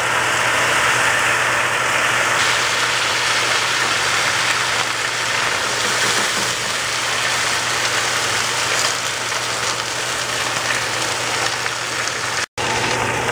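Baby bok choy sizzling and steaming in a very hot sauté pan just after white wine is poured into the hot oil: a loud, steady hiss. The sound cuts out for an instant near the end.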